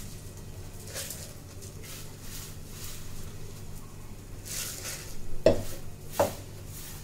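Dry-roasted spices and dried red chillies rustling as they are scooped by hand from a steel plate into a steel mixer-grinder jar, with two sharp metallic clinks of steel against steel near the end, less than a second apart.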